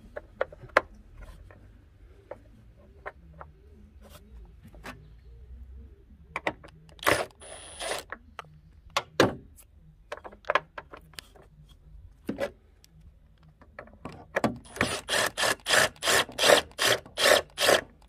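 Scattered knocks, clicks and a short metal scrape as a car battery is handled in its tray. About three-quarters of the way through comes a fast, even run of ratchet clicks, three or four strokes a second, as a socket wrench turns the battery hold-down clamp bolt.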